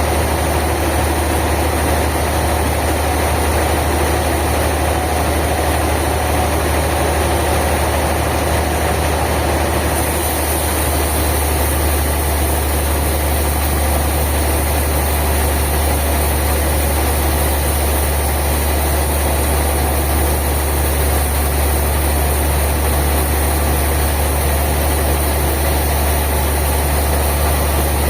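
A heavy engine running steadily at an even idle, with a constant low hum and no change in load.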